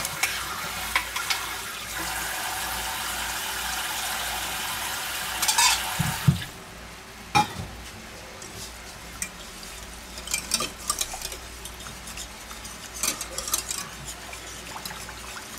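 Water running steadily for about six seconds, then stopping, with a clatter as something is set down. After that, light sizzling from the pans and the scattered clinks of a wire whisk stirring sauce in a stainless steel pot.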